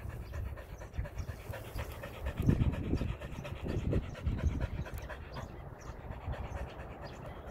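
Border collie panting rapidly and evenly, mouth open and tongue out, with a few heavier breaths partway through.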